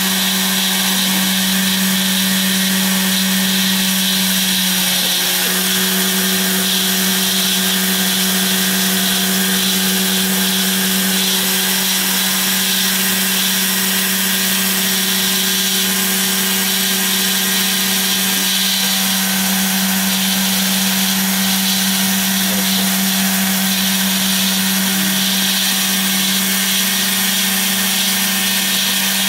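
CNC router spindle running steadily while its small end mill cuts a contour into a foam board, stepping down 0.5 mm per pass: a steady hum with a hiss of cutting above it. A fainter tone in the machine shifts slightly about five seconds in and again at about nineteen seconds.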